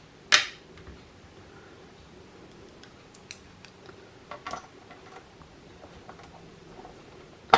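Scattered light clicks and taps of a small screwdriver and plastic parts being handled while tiny screws are taken out of an Xbox One S casing, with a sharper click just after the start and another at the very end.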